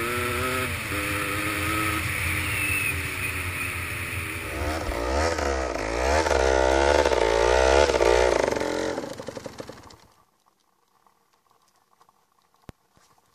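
Honda MTX 125 two-stroke dirt bike engine: first running steadily under way, then revving hard with a wavering pitch as the rear wheel spins in deep snow. The engine sound stops about ten seconds in, leaving near silence with a single click.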